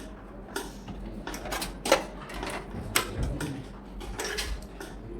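Irregular clicking and knocking of computer hardware being handled during assembly, with two sharper knocks about two and three seconds in.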